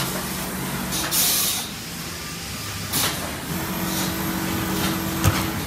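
Automatic multi-layer fabric overlocking and cross-sewing machine running with a steady mechanical hum. Short hisses of air come about a second in and again near three seconds, a higher steady whine joins about halfway through, and there is a sharp click near the end.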